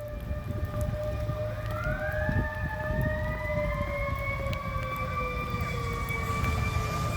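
Fire engine siren wailing, with long slowly gliding tones; a second, higher tone winds up about two seconds in and holds, over a steady low rumble.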